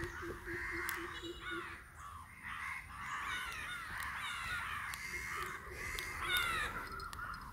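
Crows cawing among busy, overlapping calls of other birds. A low, rapidly repeated hoot runs beneath them for the first couple of seconds.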